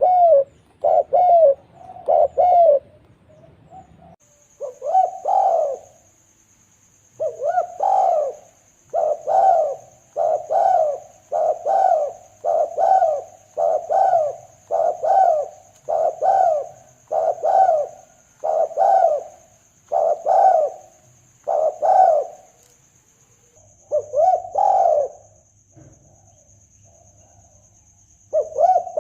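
Spotted dove (tekukur) cooing over and over, about one coo a second in steady runs broken by short pauses: a lure call for hunting doves. A faint steady high whine runs behind it from about four seconds in.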